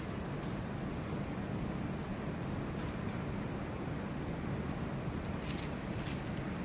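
Insects, likely crickets, droning on one steady high-pitched tone over a low, even background rumble, with a few faint clicks near the end.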